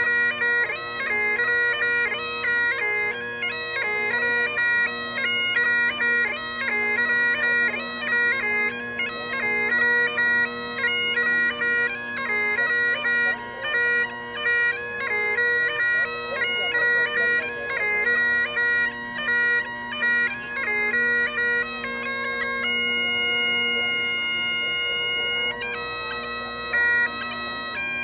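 Bagpipes playing a traditional tune, a quick-moving melody over a steady drone. A little before the end the melody holds one note for about three seconds, then moves on again.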